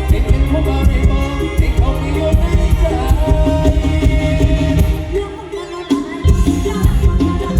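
Loud Isan stage-show band music with a heavy, thumping bass-drum beat and sustained melodic notes above it; the beat drops out for about a second around five seconds in, then comes back.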